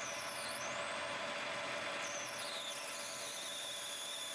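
Metal lathe running while a twist drill in the tailstock chuck bores into the spinning workpiece, a steady machine hum with a high, thin squeal from the cutting. The squeal slides down in pitch twice, then holds a steady note toward the end.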